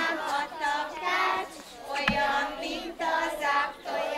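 A group of young children singing a Hungarian folk song together in phrases, with one thump about halfway through.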